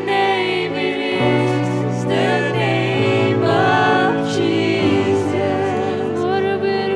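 Worship song: voices singing a slow melody over held instrumental chords, the bass note changing every second or two.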